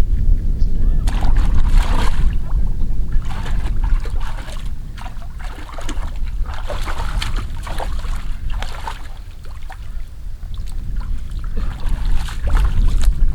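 Water sloshing and splashing in irregular bursts, with scattered sharp clicks, over a heavy low wind rumble on the microphone.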